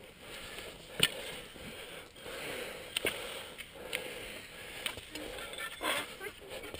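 Heavy, hard breathing of a climber hauling himself up a steep rock slope on the Half Dome cables, with a few sharp knocks, the loudest about a second in.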